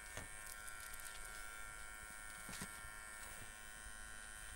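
Faint steady electrical buzz made of several even high tones, with two light clicks, one just after the start and one about two and a half seconds in.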